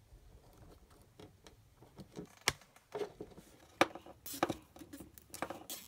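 Hands handling a plastic zip tie and a wiring-harness connector: scattered small plastic clicks and rustles as the tie is looped through the connector and around the wires, with a sharper tick about two and a half seconds in and another near four seconds.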